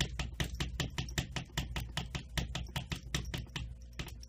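Cats' paws and claws tapping rapidly on a mirror's glass as they bat at it: a fast run of light clicks, about seven or eight a second.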